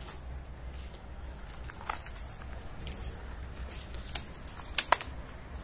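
Scattered sharp clicks and faint crackles, the loudest two close together about five seconds in, over a low steady rumble.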